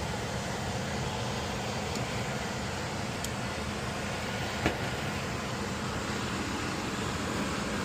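Air-conditioning system running with a steady whoosh and low hum. There is one sharp click a little past the middle.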